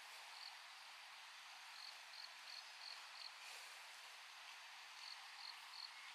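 Faint insects chirping in short high bursts, a few in quick succession every second or so, over a steady high hiss.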